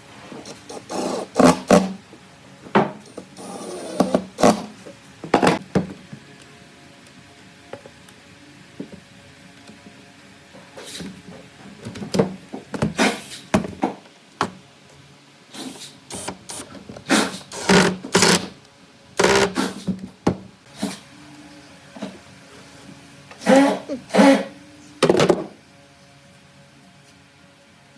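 Irregular short workshop noises, scrapes and knocks from working on wood, come in clusters over faint steady background music.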